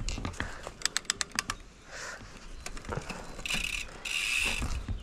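Mountain bike's rear freehub ratcheting in quick, uneven clicks while coasting, followed near the end by a brief harsher hissing noise.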